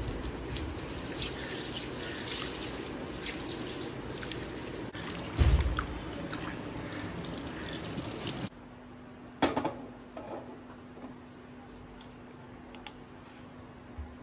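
Tap water running into a steel bowl while hands wash raw prawns, with a thump about halfway through. The water stops suddenly after about eight seconds, leaving a faint steady hum and a single knock.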